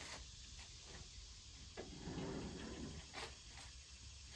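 Quiet, with a few faint, sharp clicks and a brief rustle about two seconds in.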